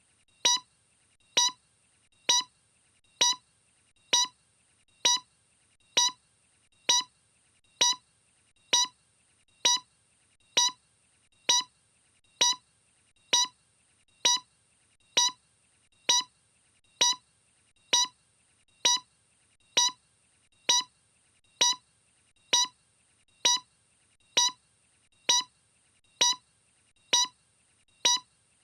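A short, sharp tick repeating evenly, a little more than once a second, with no change in pace or strength.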